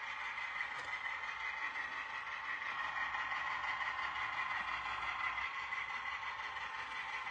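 Sound-equipped HO scale model diesel switcher playing a steady diesel engine running sound through its small onboard speaker as it pulls its train slowly along the track.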